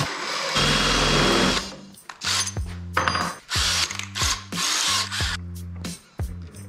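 Ryobi cordless drill driving screws into the wooden bench boards, running in short bursts that start and stop several times.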